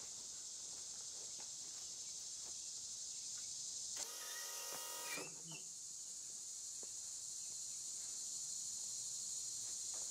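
A small electric motor whines for about a second, about four seconds in, over a steady high hiss of insects and a few faint ticks.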